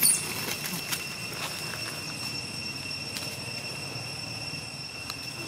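A young long-tailed macaque's brief high-pitched squeal right at the start. Then steady outdoor ambience with a constant high drone and a few faint knocks.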